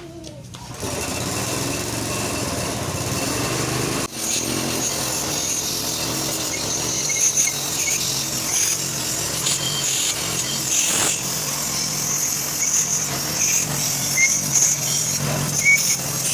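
A small motor running steadily, loud and unbroken apart from a brief dip about four seconds in.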